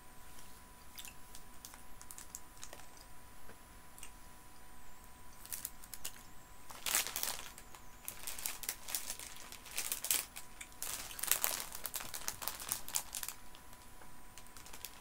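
Plastic sweet packaging crinkling and rustling in irregular bursts, with scattered small clicks and taps, busiest from about seven to thirteen seconds in.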